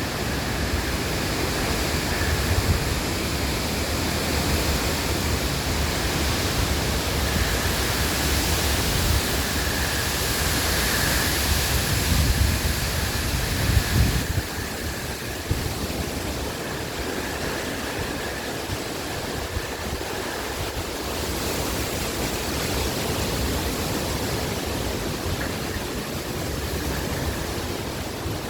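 Hurricane-force wind blowing in a steady rushing hiss, with gusts buffeting the microphone in low rumbles. The gusts are strongest in the first half and ease a little about halfway through.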